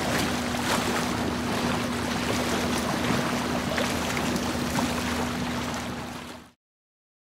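Hired river cruiser under way: its engine runs with a steady hum under water and wind noise on the camera microphone. The sound fades out quickly about six and a half seconds in.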